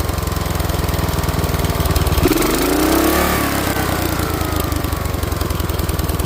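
Lawn mower engine running steadily, revving up briefly a little over two seconds in and settling back down. It runs good again on a replacement for its faulty Mikuni carburetor.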